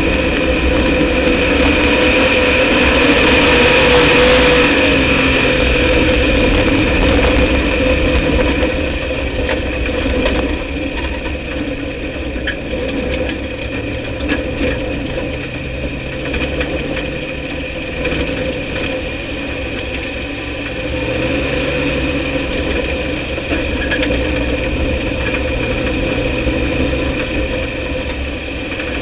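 Dirt-track race car's engine running under racing load, heard from inside the cockpit, its pitch stepping up and down with the throttle. It is louder for the first several seconds, then eases a little.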